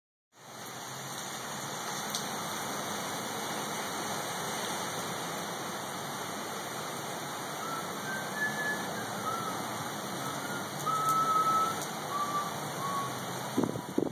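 Steady hiss of heavy hurricane rain pouring onto a wet parking lot. A few short, high whistling tones come through in the second half, and a couple of knocks sound near the end.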